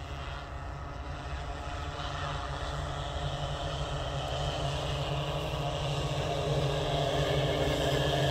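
Multirotor agricultural spraying drone's propellers humming steadily, growing louder as the drone approaches.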